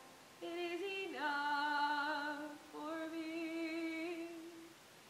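A young woman's solo voice singing unaccompanied: a few short notes, then two long held notes, the last one ending near the end.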